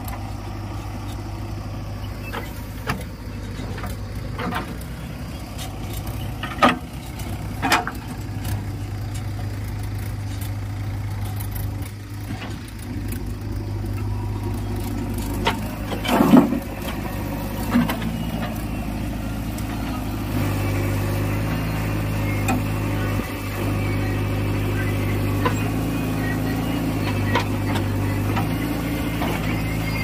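JCB 3DX backhoe loader's diesel engine running steadily while it digs soil and loads it into a tractor trolley, with scattered knocks from the bucket and arm. The loudest knock comes about 16 seconds in, as a bucketful of soil is dropped into the steel trolley. The engine note gets a little louder about 20 seconds in.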